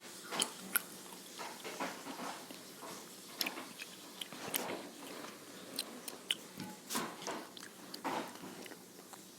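Chewing and crunching a Cheeto: irregular crisp crunches and wet chewing sounds.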